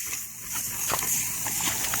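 Lawn sprinkler spraying water, a steady hiss, with scattered clicks and splashes as puppies play in the spray.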